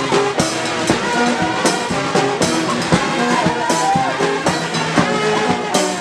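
Marching brass band playing: a sousaphone and other brass horns over regular bass drum strokes.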